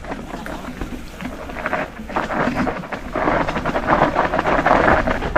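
Mountain bike tyres rolling and skidding over loose dirt on a steep trail: a rough, crackling rush that grows louder about three seconds in.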